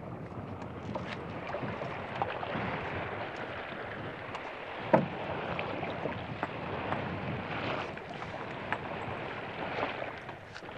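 Steady wash of harbour water, with light knocks and rustling as a fishing net is handled in a wooden rowing boat, and one sharper knock about five seconds in.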